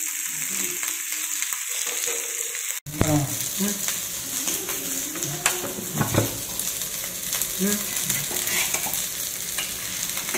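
Rava-coated small fish shallow-frying in oil on a flat pan, with a steady sizzle. Over it a metal spatula scrapes and knocks against the pan as the pieces are turned and lifted off, with a few sharper clinks after a brief break in the sound about three seconds in.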